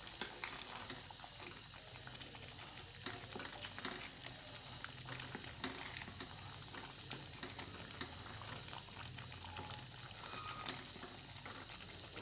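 Chicken, yogurt and spice masala sizzling in a pan of hot ghee as they are stirred with a wooden spoon: a faint, steady crackling hiss full of small pops. It is the bhuna stage of a chicken karahi, frying the mixture until the ghee separates.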